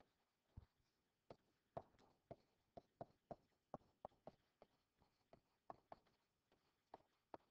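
Faint, irregular tapping and clicking of a stylus on a tablet as words are handwritten, about two or three taps a second.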